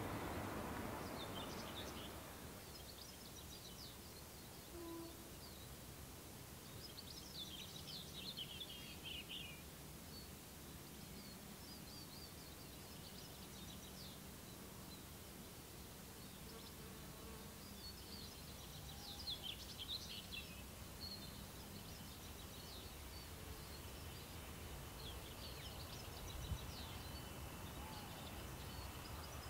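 Songbirds singing in short twittering bursts over a faint steady low hum. A passing train's noise dies away in the first two seconds, and a faint low rumble from an approaching diesel locomotive grows near the end.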